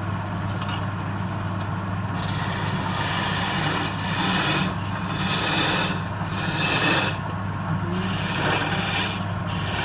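Wood lathe motor humming steadily while a tool scrapes the spinning wood. From about two seconds in the scraping comes in a run of passes, each about a second long with short breaks between them.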